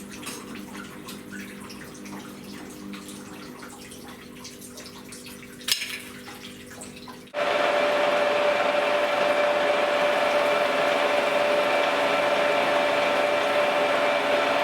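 Steady machine hum with light crackling and one sharp click. About halfway through it cuts abruptly to a louder, even machine whine that holds steady.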